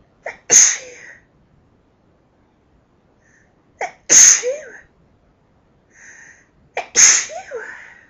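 A woman sneezing three times in a fit, about three seconds apart. Each sneeze is loud and comes with a sharp catch of breath just before it.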